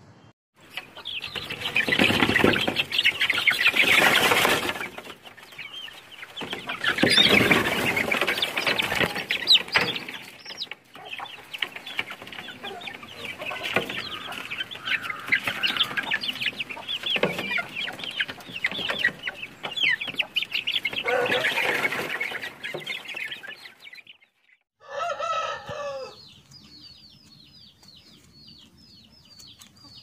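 Aseel chickens clucking and chirping in a loud, busy chorus for most of the time. After a brief break near the end there is a single short pitched call, then fainter, quickly repeated high chirps.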